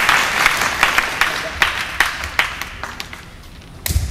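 Audience applause dying away into scattered claps. Near the end comes a single loud, sharp smack with a low thud under it, from the wushu competitor's opening move.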